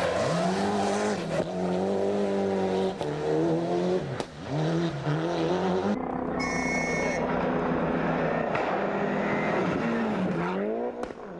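1997 World Rally Car's turbocharged four-cylinder engine running flat out through the gears, its pitch climbing and then dropping at each gear change, several times over. The sound changes abruptly about halfway through.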